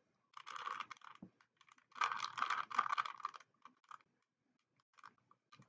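A 3x3 Rubik's Cube being turned by hand as it is solved: a clatter of plastic clicks from the layers turning. There is a short burst, a longer one from about two seconds in, then a few single clicks.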